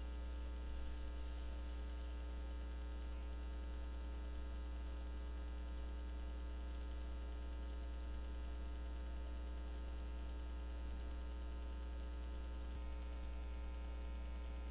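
Steady electrical mains hum with a stack of steady overtones, and faint ticks about once a second.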